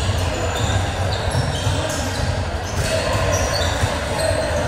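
A basketball bouncing during game play, with short high squeaks scattered through.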